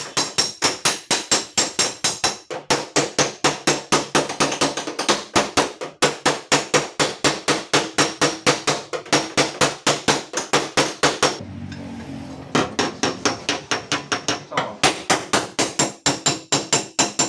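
Rapid, steady hammer blows on the sheet-metal panel of a Toyota Calya's rear door, about five strikes a second, as the deep dent is beaten out. The hammering stops for about a second near the two-thirds mark, then picks up again.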